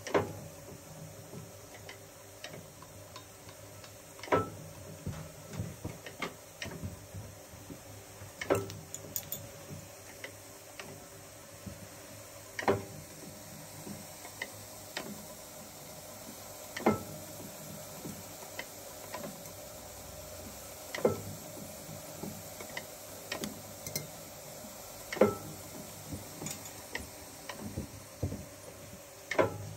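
Small metallic clicks and clinks of lead type and tweezers as type in a letterpress forme on a FAG proof press is adjusted, over a steady machine hum. A louder, sharp click comes about every four seconds.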